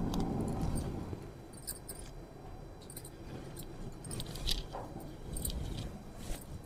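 Faint rustling of cotton Kota saree cloth being handled and unfolded, with a few light clicks and clinks scattered through.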